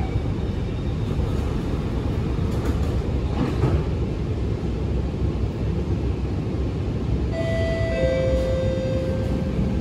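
Alstom Movia R151 metro train's doors sliding shut a few seconds in, over the steady low rumble inside the train. A falling two-note tone sounds near the end.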